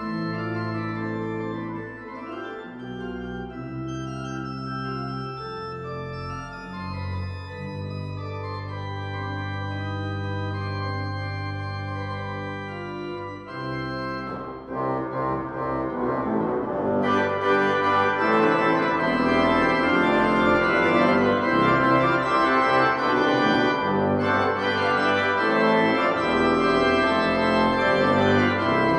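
Organ playing slow, sustained chords over long held bass notes, swelling louder and fuller a little past the halfway point.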